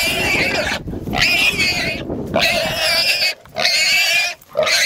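A small hog squealing loudly and repeatedly, about five long piercing squeals with short breaks between them, as it is held down by a dog and men grabbing it.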